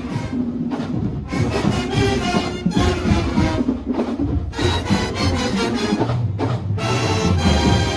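Marching band playing a loud stand tune, with brass and percussion, broken by a few short pauses.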